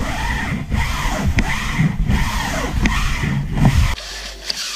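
Aztek screen washer scrubbing and spraying a window insect screen as it is pushed back and forth through the brushes, a rhythmic swishing about every half second or so. It drops off suddenly to a quieter, steadier sound about four seconds in.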